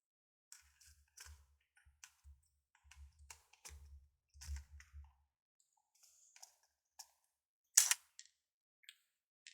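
Small laptop parts being handled and fitted by hand: a run of faint clicks and taps with soft low thuds over the first five seconds, then a few sparse clicks and one sharper, louder click about eight seconds in.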